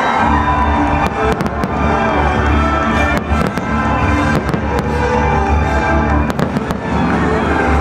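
Fireworks display bursting: repeated sharp bangs and crackles over a deep continuous rumble of booms, with music playing along.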